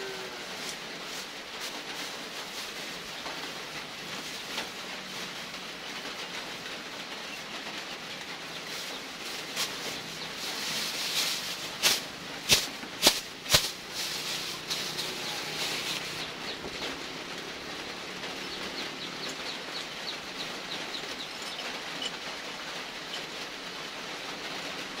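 Steady rain hiss, with a quick run of four sharp clicks or knocks about halfway through.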